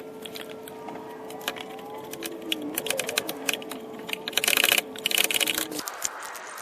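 Rapid clicking and rattling of hand tools on the engine, coming in quick runs that are loudest a little past the middle. A steady background hum underneath stops suddenly near the end.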